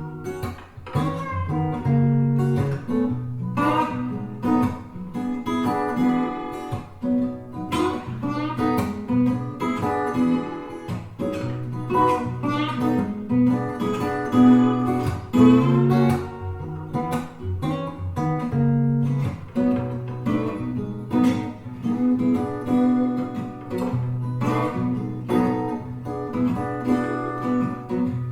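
Acoustic guitar music, plucked and strummed notes over a low bass line, played back through Energy C100B bookshelf speakers for a listening demo.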